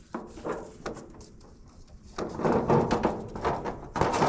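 A tractor side panel being worked loose and pulled off: a few light knocks, then about two seconds of loud scraping and rattling as it comes free, with more knocks near the end.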